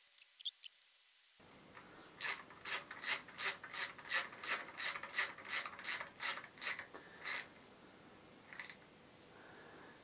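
Hand ratchet clicking as sump-pan bolts are wound in on a 3800 V6 short block, in a steady rhythm of about two and a half strokes a second. It stops after about seven and a half seconds, with one last stroke a second later.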